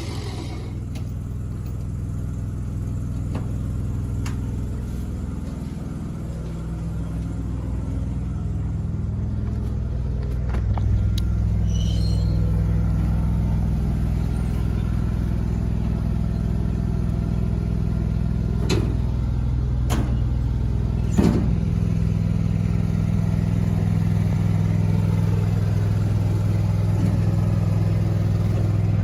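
An engine idling steadily, getting louder about ten seconds in, with a few sharp clicks near the middle of the stretch.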